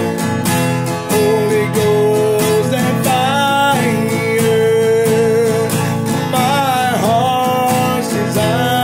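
A man singing a country gospel song over a steadily strummed acoustic guitar, holding long notes with vibrato and swooping in pitch about seven seconds in.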